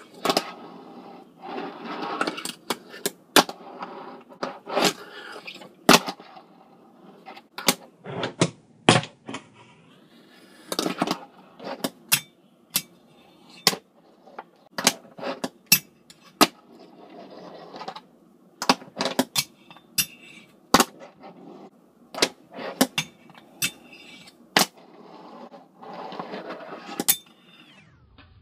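Fingerboard being ridden over a wooden pyramid ramp and a cast ledge: the board's small wheels rolling in short stretches, broken again and again by sharp clacks as the deck pops, grinds and lands.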